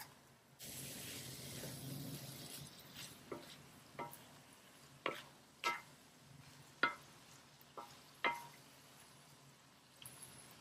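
Wooden spatula stirring ground beef and green beans in a stainless steel wok. It starts with a couple of seconds of rustling, sizzling stir, then gives about seven sharp taps against the pan, each with a short metallic ring.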